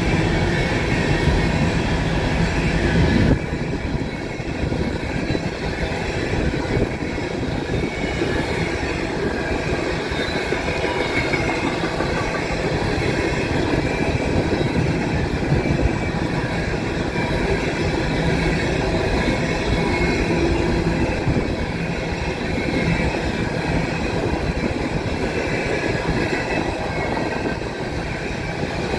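Empty coal hopper cars of a long freight train rolling past, wheels clicking over the rail joints in a steady rumble, with faint wheel squeal. It gets slightly quieter about three seconds in.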